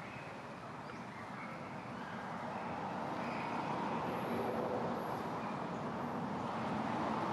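Steady noise of passing road traffic, swelling louder a few seconds in and holding.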